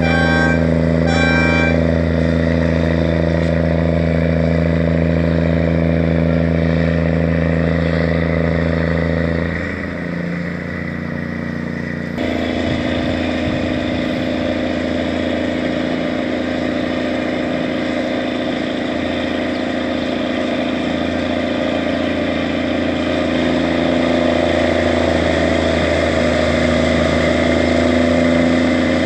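Engine of the Lakeland Queen sternwheel paddle boat running steadily. About twelve seconds in, a broad rushing churn joins it as the stern paddle wheel turns and beats the water, and the boat pulls away.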